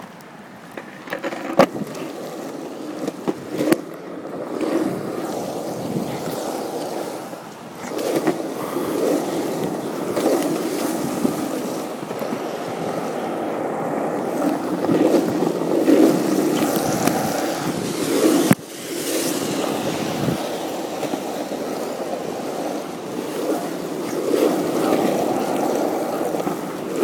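Skateboard wheels rolling over wet asphalt, a steady rumble that swells and eases with the pace, broken by a few sharp clacks.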